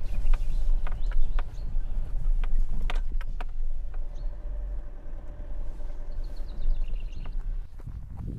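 Vehicle driving slowly over a rough dirt track: a steady low rumble with several sharp knocks and rattles in the first few seconds. A bird sings a short descending run of notes near the end.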